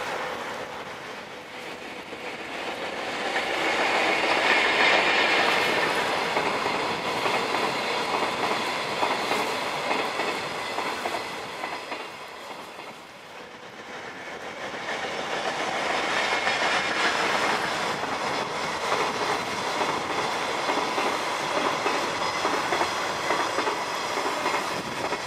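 Twilight Express sleeper train, hauled by an EF81 electric locomotive, rolling across a railway bridge: a steady rumble of wheels with clickety-clack over the rail joints. It swells twice as the train passes.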